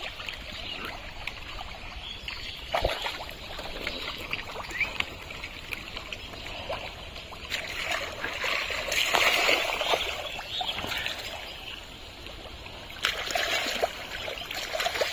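Hands and arms sloshing and splashing through thick, watery pond mud while groping for fish, with wet splats and squelches and a sharp knock about three seconds in. The splashing grows louder about eight to ten seconds in and again near the end.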